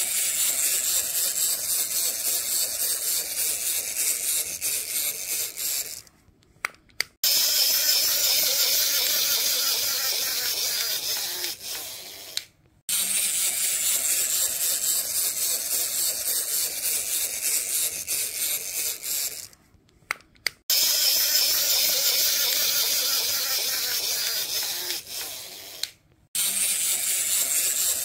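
Small electric motor and plastic gears of a battery-powered toy beetle whirring as its legs walk, cutting out briefly four times, about every six or seven seconds.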